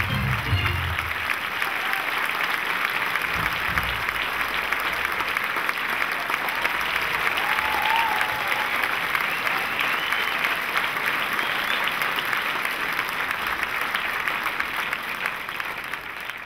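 Audience applauding steadily, while the last low notes of the music die away about a second in. The applause fades out near the end.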